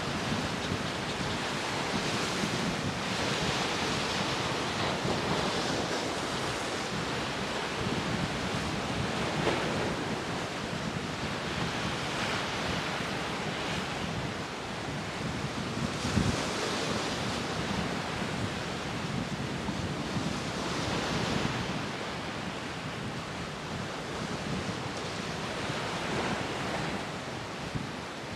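Rough surf and breaking waves with wind buffeting the microphone, swelling and easing every few seconds.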